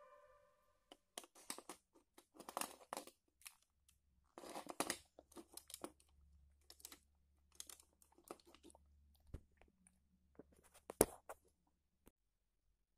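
Plastic LEGO gun model being handled: irregular crackly rattles and small clicks, with one sharp click about eleven seconds in.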